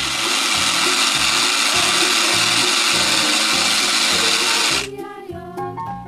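Toy blender running while its button is held down: a loud, steady whirring that cuts off suddenly about five seconds in. Background music plays underneath it throughout.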